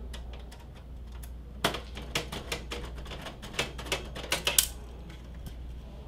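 Graphics card retaining screws being backed out of the case's rear bracket with a screwdriver and handled: a run of sharp, irregular clicks, faint at first, then louder and denser from about one and a half to five seconds in.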